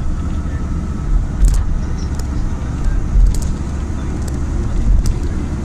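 Road and engine noise heard inside a moving vehicle: a steady low rumble, with a few brief high clicks.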